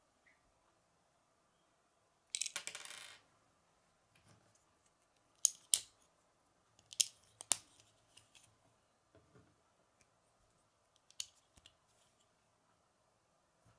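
Plastic Lego bricks being handled and pressed onto a small model: a short rattle about two seconds in, then a handful of sharp clicks spread out as pieces snap on.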